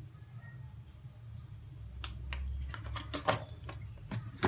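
A handful of light clicks and taps starting about two seconds in, as a spoonful of turmeric powder is tipped into a plastic mixing bowl, over a steady low hum.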